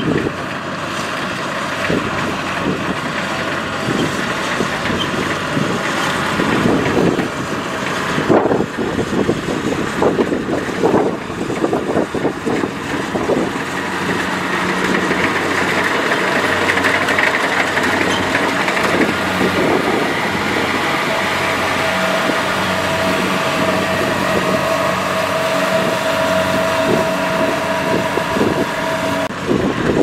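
Kubota combine harvester running steadily while cutting rice: a steady diesel engine drone mixed with the noise of the cutter and threshing gear, with a steady higher whine joining in the later part.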